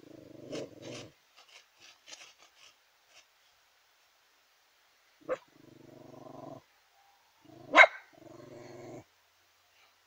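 Terrier growling low in three spells: one at the start and two in the second half. Each of the later two is set off by a sharp short burst, and the one near the end is the loudest sound. Faint sniffing ticks come between the first and second growl.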